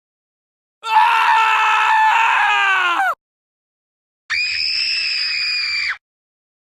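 Two separate scream sound effects with abrupt cut-offs and silence between them. The first lasts about two and a half seconds and drops in pitch at the end. The second is a higher, shrill, steady scream lasting under two seconds.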